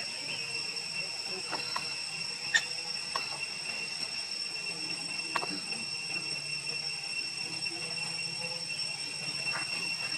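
Steady high-pitched insect drone with a low background hum, broken by a few short clicks or chirps.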